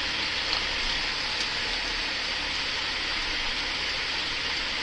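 Cat 3406E diesel of a Freightliner FLD120 running at low revs as the tractor eases a trailer back, heard as a steady rumble and hiss.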